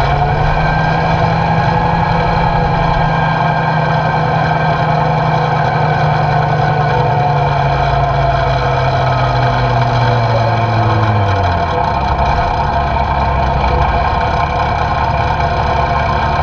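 The 1942 Diamond T 980's Hercules six-cylinder diesel running as the truck moves slowly, with a steady engine hum. About eleven seconds in, the engine note drops sharply as the revs fall, then carries on lower.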